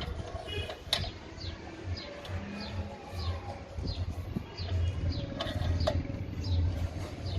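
A bird chirping over and over in short, high, falling chirps about twice a second, over a low rumble with a few sharp knocks.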